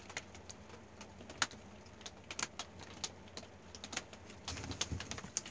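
Irregular light clicks and crinkles of a plastic package pouch being handled and turned in the hands.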